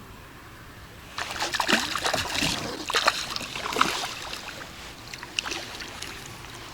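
Water splashing and sloshing, with scattered knocks and handling noises in a small boat, starting about a second in.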